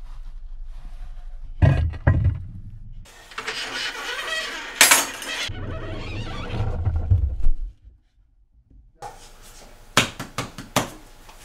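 An unfired clay bust set down inside an electric kiln with knocks and scraping, then the kiln's heavy hinged lid brought down and closed, with a sharp click; the kiln is being loaded for a bisque firing. A few sharp clicks follow near the end.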